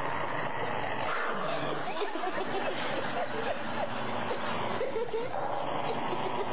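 A dog growling and snarling in short spells as it bites at its own front leg, over a steady hiss.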